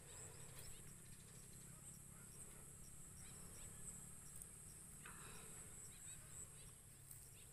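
Near silence outdoors, with a faint, steady high-pitched insect drone throughout.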